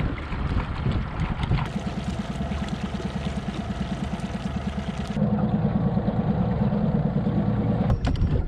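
40-horsepower outboard motor running at trolling speed, a steady low hum with water washing along the hull. The sound shifts abruptly about five seconds in, and a few sharp clicks come near the end.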